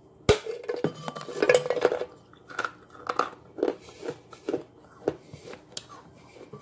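Unglazed clay jars handled close to the microphone. A sharp knock comes first, then a crackly scraping stretch, then a string of short crisp clicks and taps about two a second.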